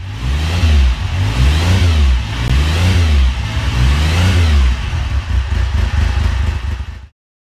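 Motorcycle engine revved up and down about four times, roughly a second apart, then running unevenly until it cuts off suddenly near the end.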